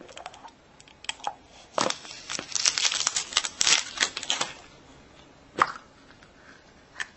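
A plastic surprise egg being opened: its plastic seal torn off and crinkled for a couple of seconds, with separate sharp clicks of the hard plastic shell before and after.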